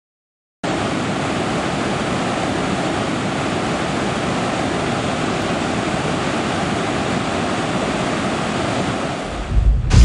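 Steady rush of a waterfall, starting abruptly about half a second in. Near the end a deep rumble of thunder builds in.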